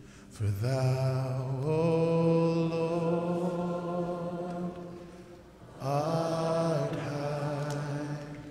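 Worship singing: a man's voice sings two long, slow, held phrases, the first starting about half a second in and the second about six seconds in, with only quiet backing in the short gaps between.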